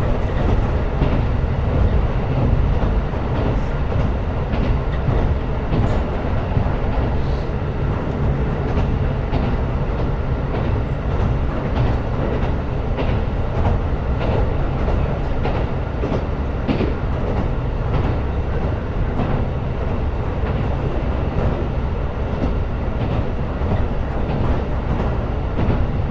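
KiHa 125 diesel railcar running at steady speed: a continuous low rumble of engine and wheels on rail, with occasional faint clicks from the wheels passing over rail joints.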